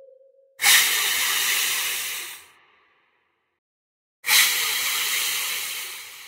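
Two hisses, each about two seconds long, a few seconds apart. Each starts abruptly, holds, then fades out.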